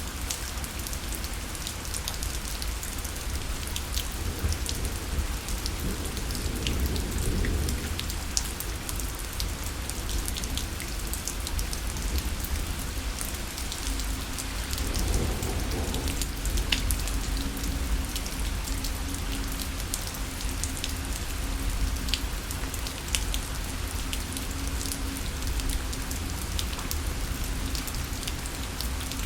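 Steady rain falling, with individual close drops heard as sharp ticks. Low rumbles of distant thunder swell twice, a few seconds in and again about halfway through.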